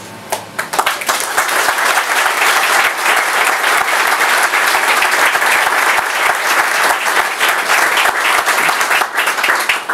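Audience applauding: a few claps at first, swelling to full applause within the first second, carrying on steadily and thinning out near the end.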